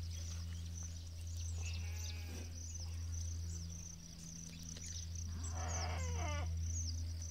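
Livestock bleating twice, a short call about two seconds in and a longer wavering one later. Under it runs a steady low hum, with short high chirps throughout.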